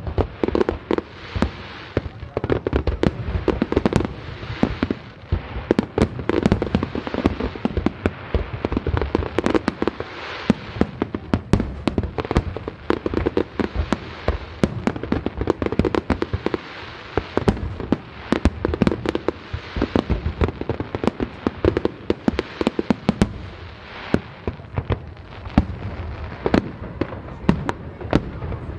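Fireworks display: a rapid, unbroken string of bangs and crackles from bursting fireworks.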